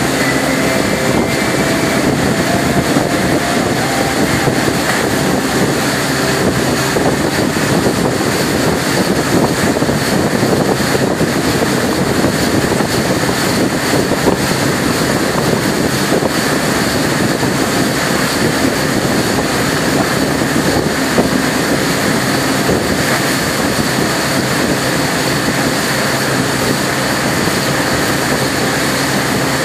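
Axis wake boat under way: its engine running steadily under the rush of churning wake water, with wind buffeting the microphone. The loud noise holds even throughout, without a break.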